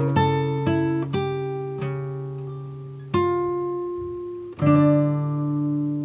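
Background music: an acoustic guitar playing slow plucked notes, each left to ring and fade before the next.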